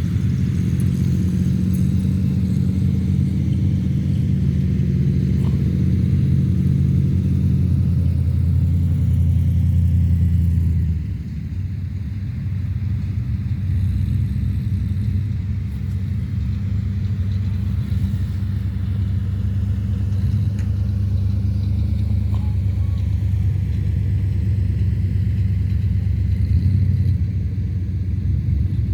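Off-road vehicle engine running steadily with a deep rumble. It drops a little in loudness about eleven seconds in and keeps running.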